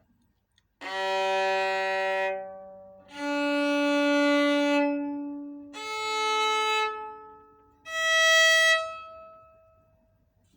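German-made Stradivari-copy violin playing four long bowed notes one after another, each higher than the last, at the pitches of its four open strings G, D, A and E. Each note dies away briefly before the next begins.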